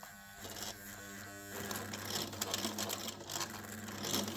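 Singer 99K sewing machine running on its electric motor, a steady hum that picks up speed and grows louder about a second and a half in.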